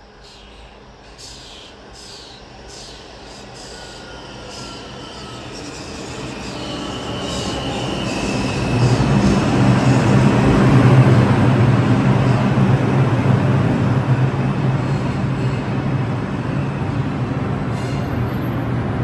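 An R142 subway train pulling into the station, growing steadily louder: evenly spaced clicks of the wheels over the rail joints, a brief high wheel squeal partway in, then a steady low hum as it stands at the platform.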